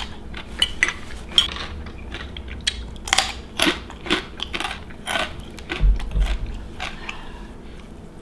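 Irregular clinks and knocks of cutlery against dishes during a meal, with some biting and crunching of food.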